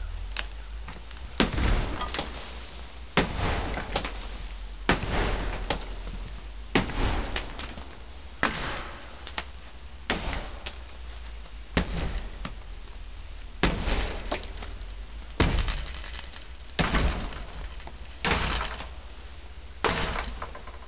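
Axe blows striking a mobile home, about a dozen at a steady pace of one every one and a half to two seconds, each with a short crunch of breaking material.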